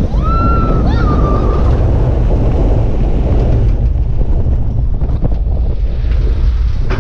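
Wind buffeting the microphone over the steady low rumble of a water-coaster boat running along its steel track, with a brief high-pitched tone in the first second and a half.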